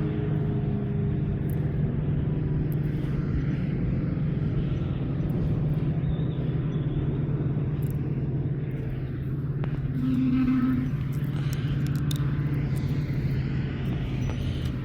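An engine running steadily with a low, even hum, and a brief higher tone about ten seconds in.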